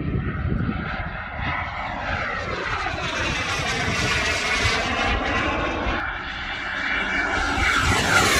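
Turbine engine of a radio-controlled model jet flying past: a continuous jet rush and whine whose tones sweep as it moves, growing louder as it comes close near the end.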